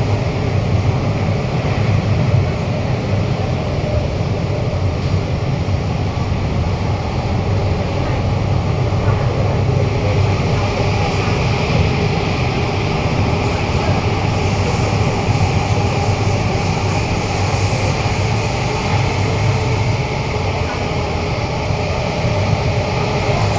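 Interior noise of a Kawasaki–CRRC Sifang CT251 metro car running between stations in a tunnel: a steady low rumble of wheels on rail with a hiss over it that grows a little brighter about halfway through.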